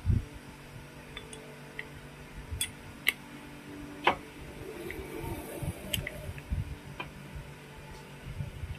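Scattered sharp metallic clicks and taps of a socket wrench turning and seating the 10 mm clutch spring bolts on a motorcycle clutch pressure plate. The bolts are being tightened fully by hand, with a soft knock near the start.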